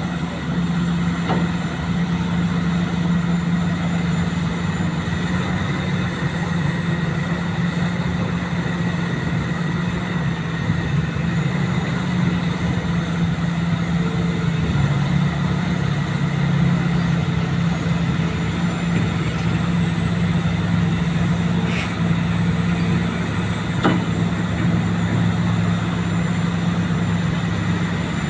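Vehicle engine running steadily on test after a fuel pump repair, a constant low hum that shifts slightly in pitch about halfway through.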